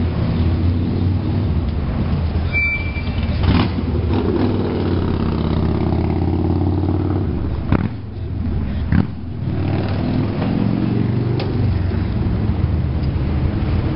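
1928 Melbourne W2-class electric tram running past on curving track: a steady low hum of motors and wheels, with a few sharp clacks, one about a quarter of the way in and two more just past the middle.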